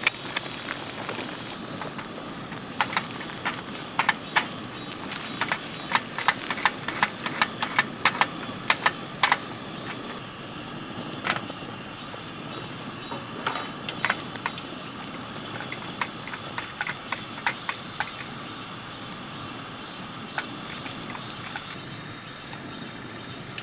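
Steady rushing of a creek, with a run of sharp clicks and knocks that come thickly for several seconds and then only now and then.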